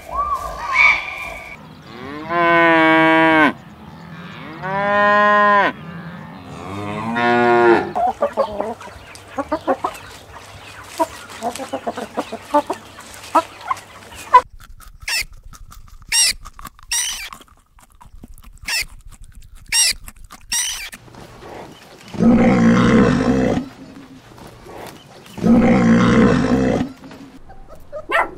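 A run of animal calls: three long calls with rising-then-falling pitch a second or two apart, then chickens clucking with short high chirps, and near the end two loud, harsh calls about three seconds apart.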